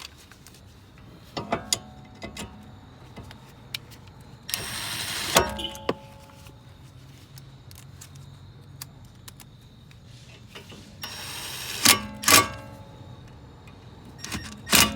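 Steel brake rotor and tools handled against the wheel hub: light clicks, two short scraping rubs each ending in loud metallic clanks that ring briefly, about five seconds in and near twelve seconds, as the rotor is fitted back onto the hub.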